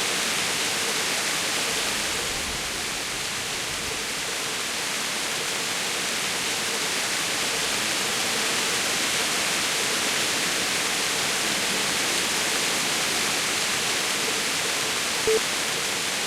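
Heavy rain pouring down, a steady dense hiss with no thunder. A short beep near the end.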